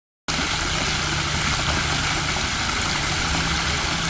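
Steady rushing of churning water, with a low steady hum beneath it. It starts and stops abruptly.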